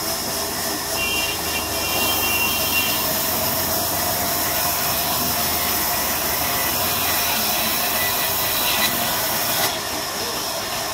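Large sawmill band saw ripping lengthwise through a log, a steady loud hissing whine of the blade in the wood. It eases off slightly about ten seconds in.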